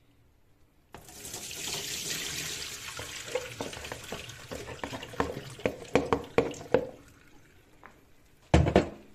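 Diced aubergine cubes tipped from a silicone colander into a stainless steel mesh sink strainer: a rushing patter of pieces falling onto the mesh, then a run of sharp clicks and knocks as the last pieces drop, and one loud thump near the end.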